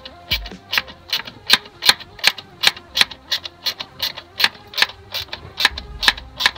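Steady mechanical ticking, about three sharp clicks a second, evenly spaced. It is guessed to be just the fan.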